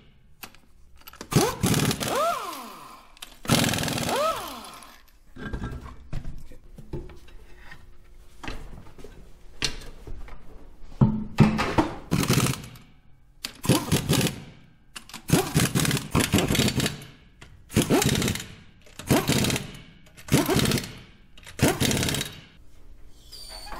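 Impact wrench running in repeated short bursts on wheel lug nuts, about ten bursts of a second or so each. The first two rise and then fall in pitch.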